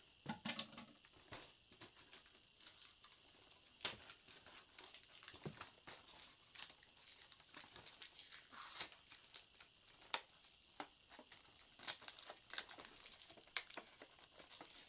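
Faint, irregular clicks, crackles and scraping of a toy's box packaging being worked open by hand, with a few sharper clicks scattered through.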